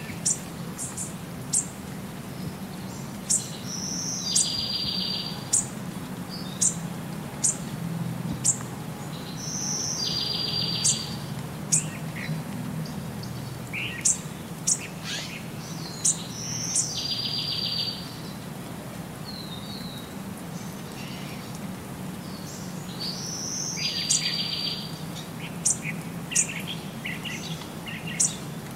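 Birdsong: many short, sharp high chirps, and a short high trill that comes back about every six to seven seconds, over a steady low hum.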